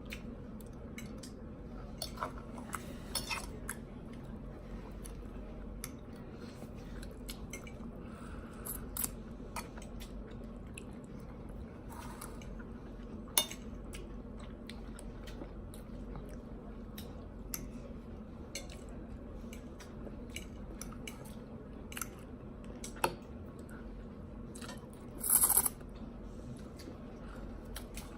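Eating sounds: chewing with scattered sharp clicks and taps of utensils on dishes, over a steady low hum, and a short loud crunch or rustle near the end.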